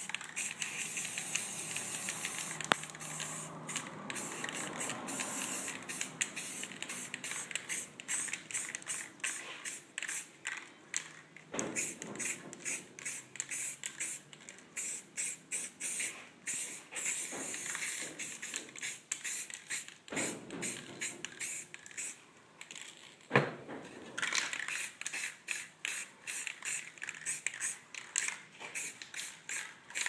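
Aerosol spray paint can hissing, steady at first and then in many quick short bursts, with a longer spray about three-quarters of the way through. A few sharp knocks come in between.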